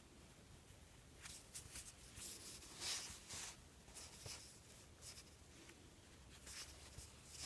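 Faint, scratchy rustling of yarn and a crochet hook worked by hand, in short irregular brushes, the loudest about three seconds in.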